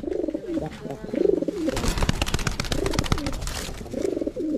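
White fantail pigeons cooing over and over in low, warbling calls. From about two seconds in, for a second and a half, a rapid flurry of wing flapping sounds over the cooing.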